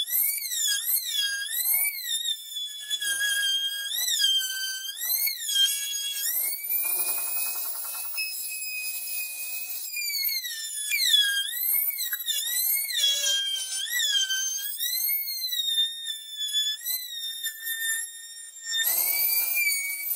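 Trim router's motor running with a high-pitched whine while cutting a circle in plywood on a pivoting jig. Its pitch keeps dipping and recovering as the bit bites into the wood under load. It holds steady for a few seconds in the middle.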